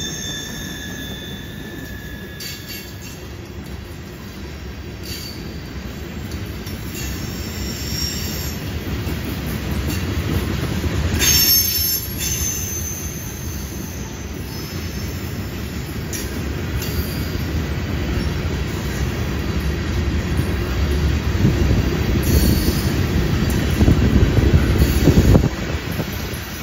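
Freight train tank cars rolling past on a curve: a steady low rumble of steel wheels on rail that builds toward the end. High-pitched wheel squeal from the curve fades in the first couple of seconds and returns briefly about eleven seconds in.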